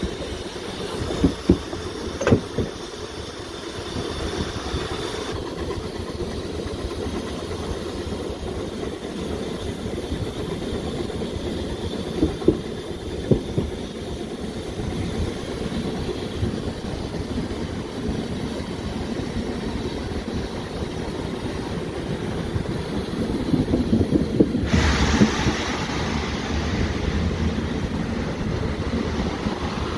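Fichtelbergbahn narrow-gauge train carriage running on the rails, a steady rumble with a few sharp clacks from the wheels and running gear. About 25 s in a louder rushing hiss sets in.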